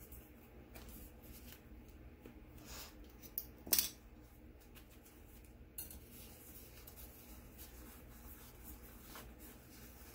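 Quiet handling of paper sticker sheets and small tools on a desk, with a sharp click about four seconds in and a fainter one near six seconds.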